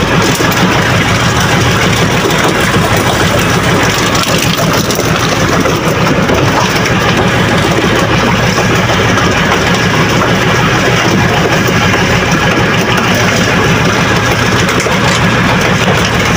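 Fishing boat's engine running steadily, a loud low drone that doesn't change.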